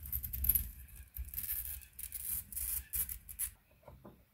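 A wheeled glass cutter scoring a sheet of picture glass in a single pass along a straight edge: an uneven, high hiss that stops about three and a half seconds in.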